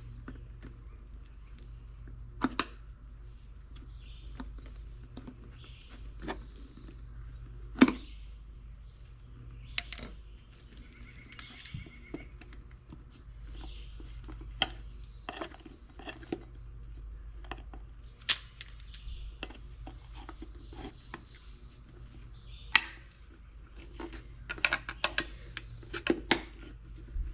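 Scattered clicks and knocks of tools and metal parts as a tire is worked onto a small wheelbarrow wheel over its inner tube, with a steady hum underneath. The knocks are sharpest about eight seconds in and come more often near the end.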